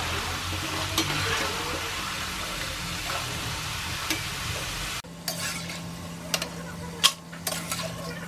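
Jackfruit strips deep-frying in hot oil, a dense, steady sizzle as they are stirred with a metal slotted skimmer. About five seconds in it cuts to a quieter sizzle of the browned chips, with a few sharp clicks of the skimmer against the pan.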